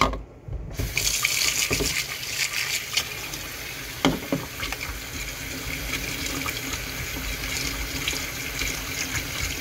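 Kitchen faucet turned on about a second in, its stream running steadily into a stainless steel sink and splashing as a plastic bowl and hands are rinsed under it. There is a brief knock about four seconds in.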